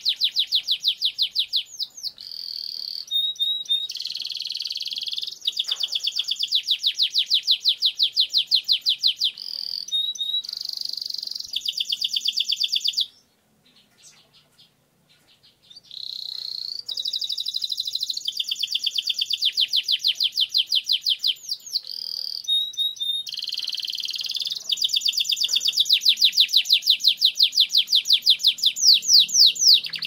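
Domestic canary singing its long rolling song: long trills of fast repeated high notes, run together with short changes of phrase. The song stops for about three seconds near the middle, then starts again.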